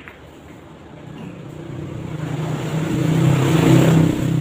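A motor vehicle passing on the road. Its engine hum grows steadily louder for about three seconds and then begins to fade.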